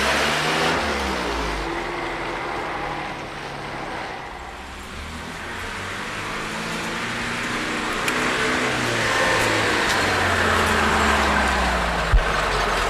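GAZ-69A jeep's four-cylinder engine driving: its note falls and fades over the first couple of seconds, then rises and grows louder as it pulls closer and holds steady. A single sharp click near the end.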